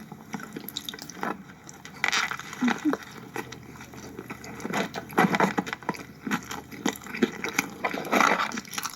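Close, wet mouth sounds of a person chewing a sub sandwich: irregular smacks and clicks that come in bunches.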